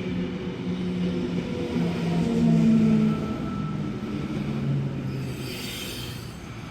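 A vehicle passing by, its engine note loudest a few seconds in, then falling in pitch and fading away. A short hiss follows near the end.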